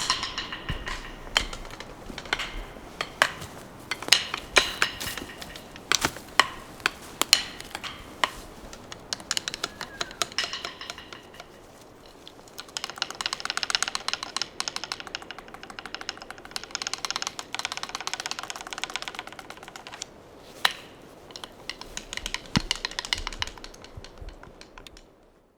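Woodpecker pecking on wood: scattered single knocks, each with a short ringing tone, then about seven seconds of rapid, continuous tapping starting about halfway through, and a few more quick runs of taps near the end.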